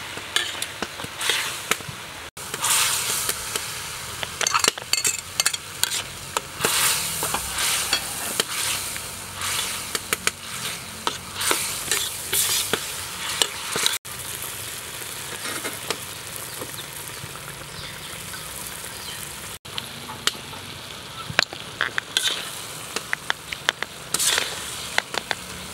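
Sauce sizzling in a wok while a metal ladle stirs it, the ladle scraping and clicking against the pan many times.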